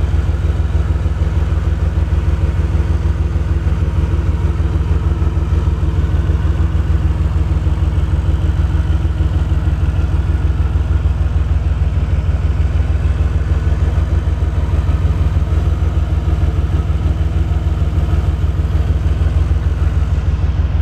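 DeLorean DMC-12's PRV V6 engine idling, warmed up, with the rough idle that a dwell meter is being used to diagnose. Steady and loud throughout.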